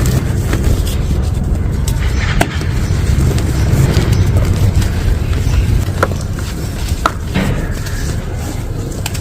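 Compacted sand being crushed and crumbled close to the microphone: a continuous low rubbing rumble with scattered sharp crunches, the clearest about two and a half, six and seven seconds in.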